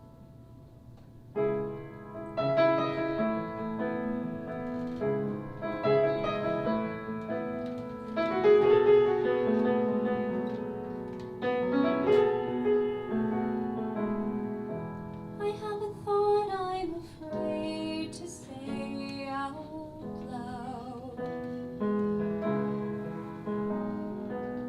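Piano playing a chordal introduction to a musical-theatre song, starting about a second in. A woman's singing voice comes in over the piano about two-thirds of the way through.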